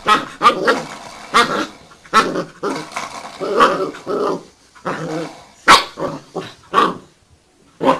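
Puppy growling in repeated bursts while pawing and biting at a spring door stop, with a few short sharp barks; the loudest comes about six seconds in.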